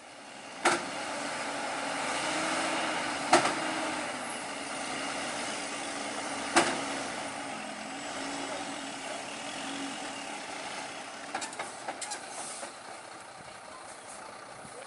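Heavy truck engine running steadily, with three sharp clacks about three seconds apart and a quick cluster of smaller clicks near the end.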